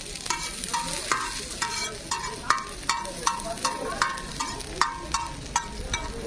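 Metal spatula clanking against a hot metal griddle or pan, about two and a half strikes a second, each strike ringing, over a steady sizzle of frying.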